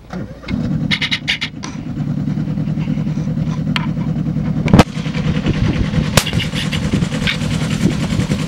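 Miniature railway train with a miniature Deltic-outline locomotive moving off: the locomotive's motor starts a steady low drone about half a second in and keeps running under load. Sharp knocks cross it, the loudest about five seconds in and another a second later.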